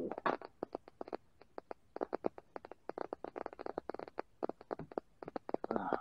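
Rubber fatbike inner tube being handled and rubbed in the hands, giving an irregular run of small clicks and crackles.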